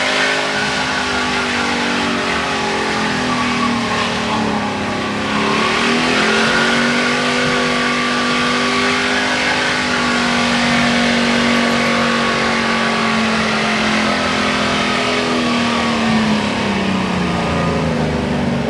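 Competition diesel pickup engine running hard at high revs under load, over a steady hiss. Its pitch dips and climbs again about five seconds in, holds level, then sinks away near the end.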